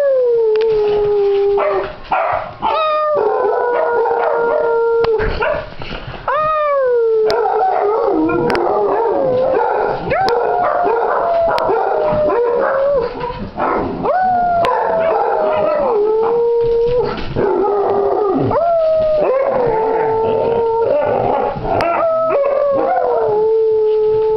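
Basset hounds baying: long drawn-out howls, one after another, each sliding down from a higher pitch and settling on a held note. Short yips and barks come in between.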